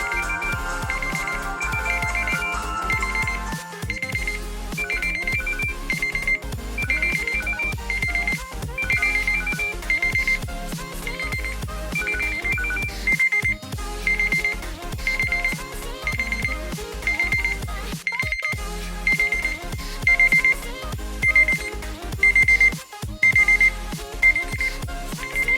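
Smartphone alarm or timer ringtone playing: short electronic beeps repeating at an even rhythm over a musical melody. The pattern changes about four seconds in and breaks off briefly a few times as it loops or switches.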